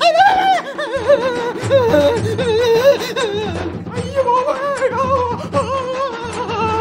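Background music: a wavering melody with heavy vibrato over a low pulsing bass.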